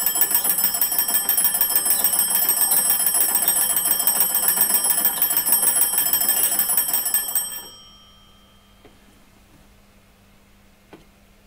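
The twin metal bells of an antique wooden magneto wall telephone ring in a fast, continuous trill, then stop about seven and a half seconds in. A couple of faint knocks follow as the wooden case is opened.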